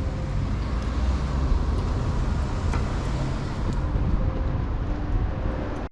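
Street traffic noise: a steady wash of passing cars with low engine hum and a few faint clicks, cutting off suddenly at the end.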